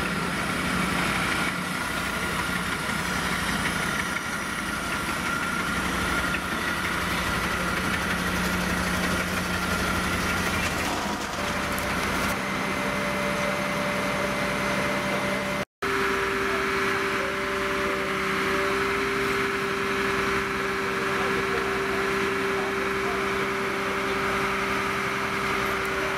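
Diesel engine of a MAN fire engine idling steadily. About sixteen seconds in the sound drops out for an instant, then an engine runs on with a steadier, higher hum.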